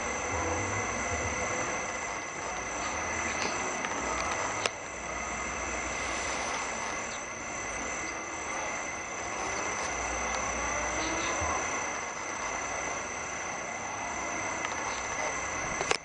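Steady chorus of insects holding several high-pitched tones, one of them pulsing rapidly, over a low background rumble. There is a single sharp click a little under five seconds in.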